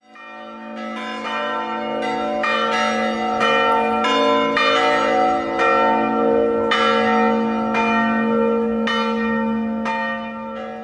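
Church bells ringing, a new strike about every half second over a long sustained hum, fading in at the start.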